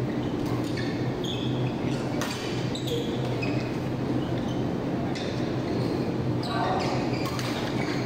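Badminton rally: rackets striking the shuttlecock in a series of sharp smacks every second or so, with short squeaks of shoes on the court floor in between, over a steady low hum.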